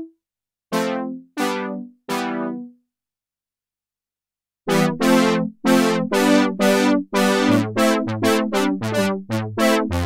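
TAL-U-NO-LX V2 software synthesizer, an emulation of the Roland Juno-60, playing brass presets. Three short chords come about a second in, then after a pause of about two seconds a faster rhythmic run of chords over a bass line.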